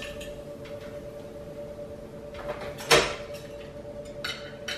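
The hinged lid of an electric grill swung shut about three seconds in: a short rising swish ending in one loud clack. A steady hum and a few light ticks run underneath.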